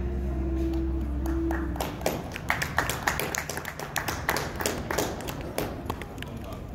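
A band's last chord rings out and stops about two seconds in, followed by a few people clapping unevenly.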